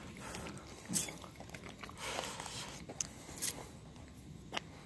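Faint mouth sounds of a dog taking and chewing a small food treat, with scattered soft clicks and rustles; the sharpest click comes about a second in.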